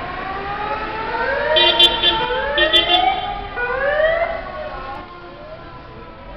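Emergency vehicle siren sounding in repeated rising sweeps, about one a second, fading after about five seconds. Two short bursts of horn honking cut in over it about a second apart.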